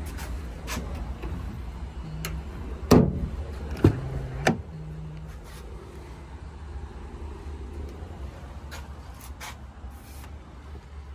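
Rear door of a GMC Sierra 3500HD crew-cab pickup being unlatched and swung open: three loud clunks close together about three to four and a half seconds in, over a steady low rumble.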